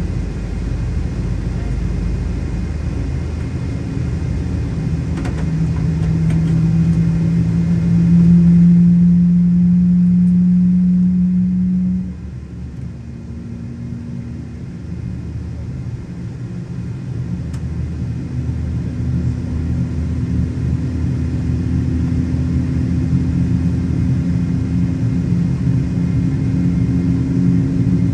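Pratt & Whitney PW4077 turbofan engine of a Boeing 777-200 starting, heard from inside the cabin: a steady low rumble with a whining tone that rises and grows louder, cuts off suddenly about twelve seconds in, then a second tone slowly rises.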